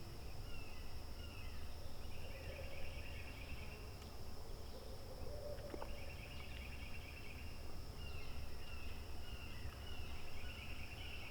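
Woodland dawn ambience: a steady high insect drone, with birds calling on and off over a low rumble.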